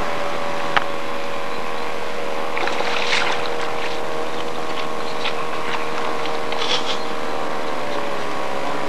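A steady hum of several held tones that does not change. Over it come brief rustles and knocks: one a few seconds in, another near the end.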